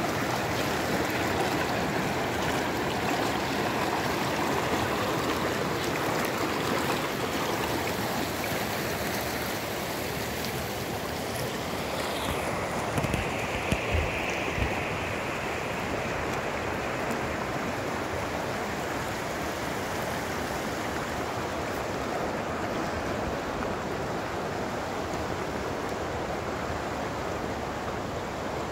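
Mountain stream rushing steadily over rocks. A few brief thumps come about halfway through.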